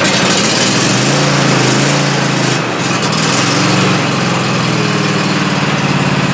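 MTD Gold lawn tractor's Kohler 23 hp V-twin engine running steadily, just after catching on its first start.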